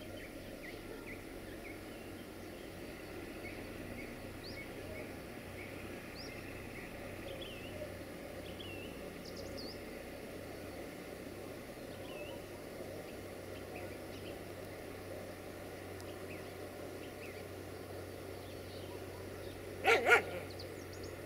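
Village ambience: small birds chirping here and there over a steady background hum, and a dog barking twice, loud and close together, near the end.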